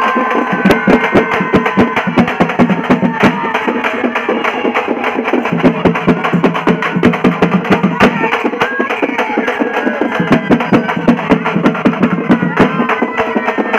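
Loud dance music with fast, dense percussion, a melody line over it and a bass note that changes every few seconds.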